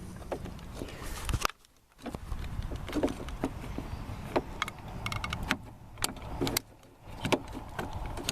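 Irregular clicks, taps and knocks of a plastic exterior door handle and its linkage rods being worked back into place in a truck door, with a brief quiet pause about a second and a half in.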